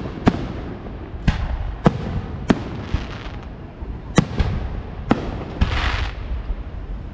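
Fireworks bursting: a string of sharp bangs, about seven of them, irregularly spaced over a steady low rumble. Near the end comes a short hissing crackle.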